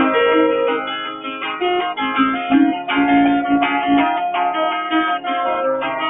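Acoustic guitar with a capo, playing an instrumental folk piece: separately picked notes ringing over one another at a steady pace.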